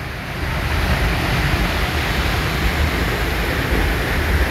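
Steady rush of water from a waterfall and a shallow warm river, with a deep rumble underneath, growing a little louder about a second in.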